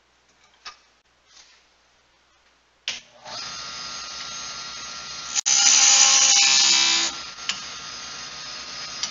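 Jet wood lathe starting up about three seconds in and then running with a steady motor whine, the spindle blank spinning. After a sharp click, a louder hiss lasts about a second and a half, then the lathe runs on steadily.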